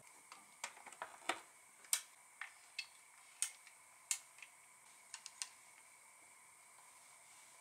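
A run of irregular light clicks and taps, about fifteen in the first five seconds, then stopping.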